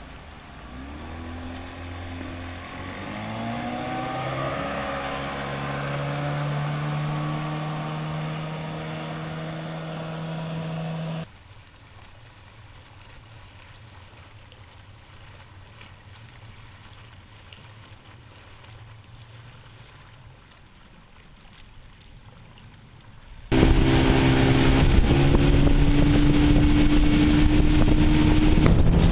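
A motorboat's outboard motor runs and climbs in pitch as the boat speeds away, then cuts off abruptly about eleven seconds in, leaving the engine faint. Near the end the sound jumps to the same engine heard loud from aboard the boat, running steadily under heavy wind and rushing water.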